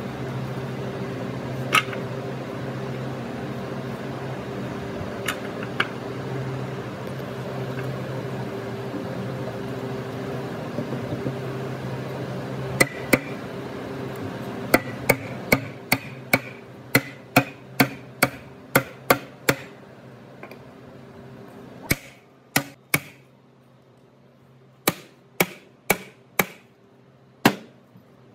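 A steel-headed hammer knocking on the top rail of a hardwood frame: a run of sharp wooden knocks about two a second, then a short pause and more blows near the end. Under the first half a steady machine hum runs and fades out about two-thirds through.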